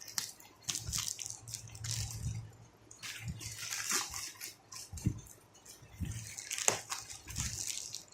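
Delivery packaging being handled: rustling and crinkling in irregular bursts, with a few light knocks as the boxes are pulled out of it.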